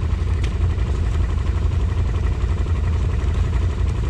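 Tracked ATV engine idling, a steady low rumble.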